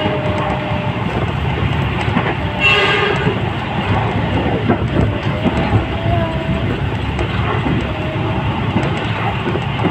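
Passenger train running, heard from inside the carriage: a steady rumble of wheels on the rails with occasional clacks over rail joints, and a short horn blast about two and a half seconds in.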